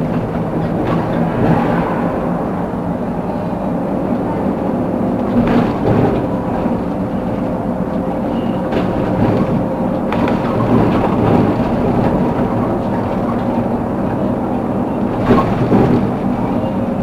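Steady driving noise of a road vehicle on the move: engine hum with tyre and road rumble, and a few brief bumps.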